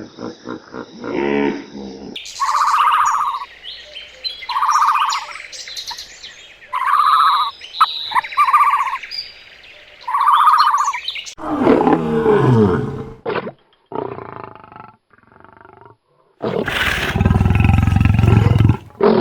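Farm animals calling in turn: five similar calls about two seconds apart, then a falling call, and a loud, deep call near the end.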